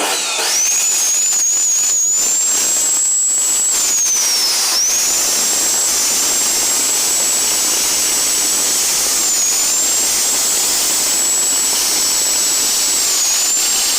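Bosch GCO chop saw's brushed universal motor switched on and spinning up to full speed, running with a loud rush and a high whine. The whine sags about five seconds in and snaps back, then dips briefly twice more near the end.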